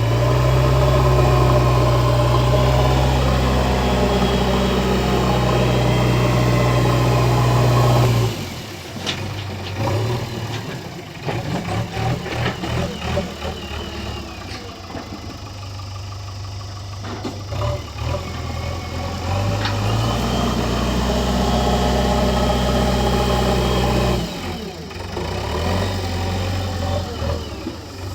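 Diesel engine of a JCB backhoe loader at work, running loud and steady for about eight seconds, then dropping suddenly to a lower, uneven running with scattered knocks, and rising again to full running for several seconds before dropping back near the end.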